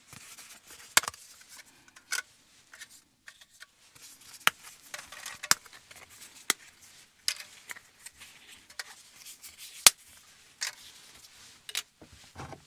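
Dry lasagna noodles being snapped by hand and laid in a cast-iron pot: about ten sharp, brittle snaps and clicks at uneven intervals.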